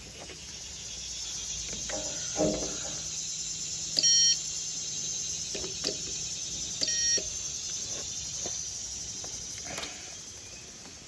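Two short electronic beeps about three seconds apart, over a steady high hiss.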